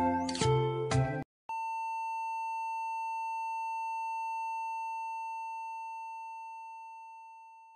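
Closing music stops about a second in; after a brief gap a steady, high-pitched test-tone beep of the kind that goes with TV colour bars sounds and slowly fades out over the last few seconds.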